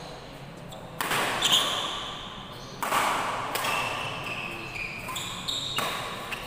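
Badminton racket strings striking the shuttlecock in a doubles rally: three sharp hits, about a second in, just before three seconds and near six seconds, each ringing on in the hall's echo.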